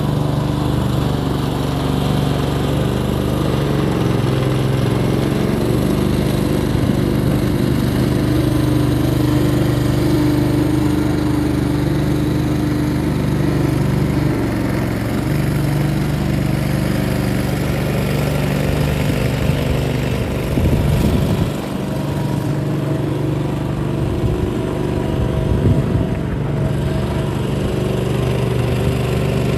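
Prime Mover LS70 skid steer loader's engine running steadily as the machine drives and turns, with a rougher, uneven stretch about two-thirds of the way through.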